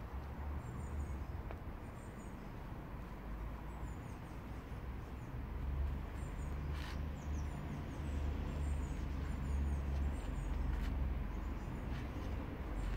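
Outdoor ambience: a steady low rumble with short, high double chirps of small birds repeating about once a second, and a few faint clicks.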